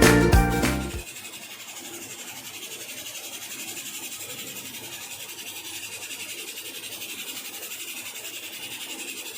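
Background music cuts off about a second in, leaving a steady hiss of food cooking in the pot.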